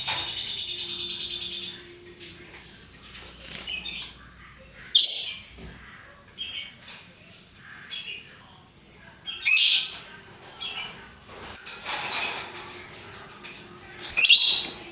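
Lovebirds calling: a fast, even chattering trill at first, then a run of separate shrill, high chirps, four of them loud, with softer calls between.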